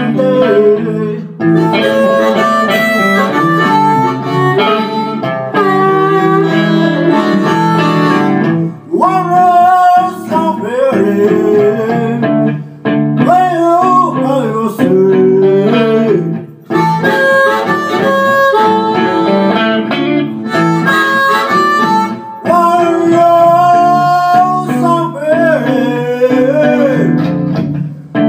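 Down-home blues on blues harp (harmonica) and guitar: the harmonica plays lead lines with bending notes over a guitar accompaniment.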